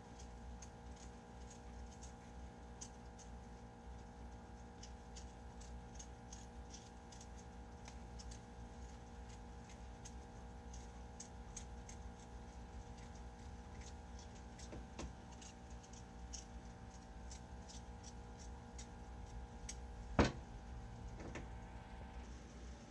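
Faint, irregular little clicks and scrapes of a small knife peeling the thin skin off small new potatoes, over a steady hum. One sharper click comes near the end.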